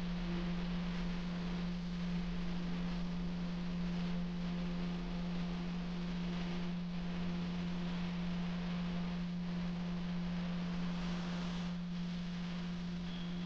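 A steady low hum: one unchanging low tone, with a faint hiss beneath it.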